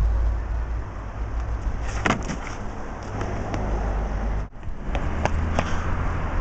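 Outdoor street noise: a steady low rumble with a few sharp clicks about two seconds in and again near the end, broken by a brief dropout about four and a half seconds in.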